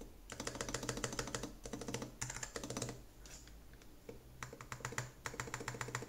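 Keys being pressed rapidly on a Nuphy Air60 HE low-profile magnetic keyboard fitted with Gateron magnetic Jade switches: a quick run of keystroke clicks, a pause of about a second and a half, then another quick run.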